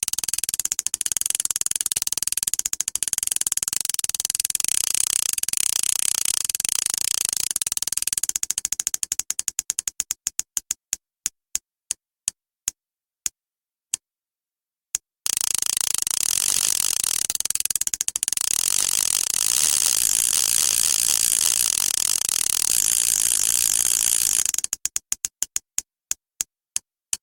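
Fishing reel's ratchet clicker buzzing in a fast, dense run of clicks that slows into single spaced-out clicks and stops. After a short pause it starts fast again and slows once more near the end, like line running off the spool and coming to a halt.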